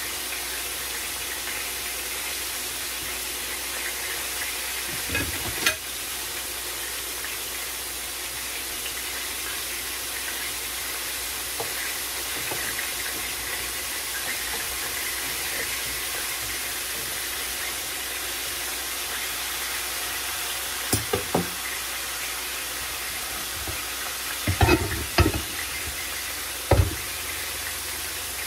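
Steady hiss of a pot of macaroni boiling on the stovetop, stirred with a utensil that knocks against the pot: once about five seconds in, twice around twenty-one seconds, and a few louder knocks near the end.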